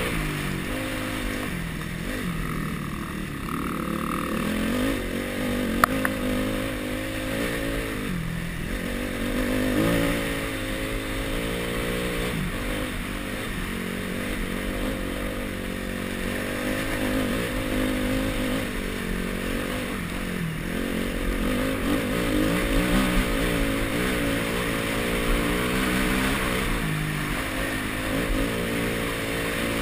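Enduro dirt bike engine pulling along a trail, its pitch repeatedly rising and falling as the rider works the throttle. A single sharp click comes about six seconds in.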